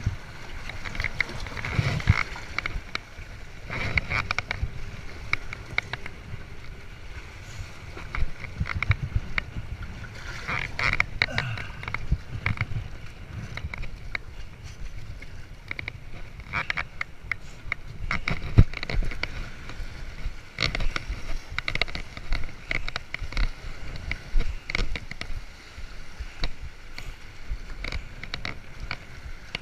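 Shoes and hands scuffing and knocking on the rough stone blocks of a harbor breakwall, many short irregular knocks, over wind on the microphone and water lapping against the rocks.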